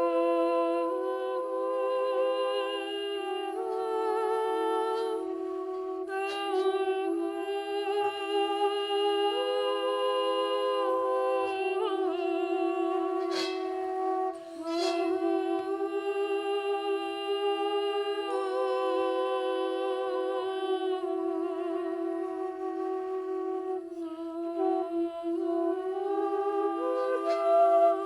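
Background music: a slow Irish lament, its melody moving in long held notes over a steady unbroken drone.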